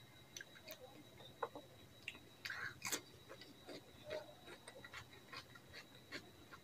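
Close-up eating sounds: irregular small wet clicks and smacks from chewing and from fingers gathering curry and rice off the plate, busiest about two and a half to three seconds in.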